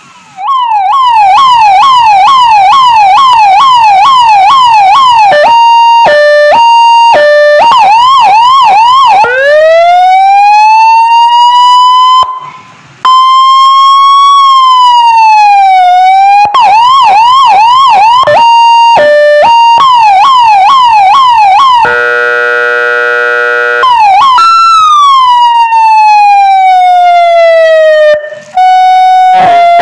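Electronic siren amplifier and speaker stepping through its tones. It plays a fast yelp, a hi-lo two-tone, and a slow wail that rises and falls. About two-thirds of the way in, a buzzing air-horn tone sounds for about two seconds. Near the end there is a steady single tone.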